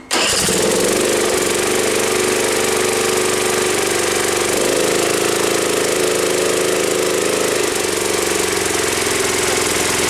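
Newly fitted replacement engine in a John Deere ride-on mower starting up suddenly and running at a steady speed.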